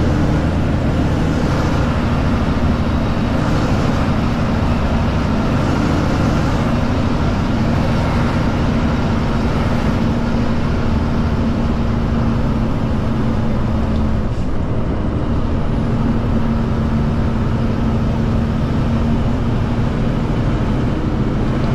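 Heavy truck's Cummins diesel engine running steadily under way, heard from inside the cab of a Kenworth K200 cabover. The engine note changes briefly about two-thirds of the way through.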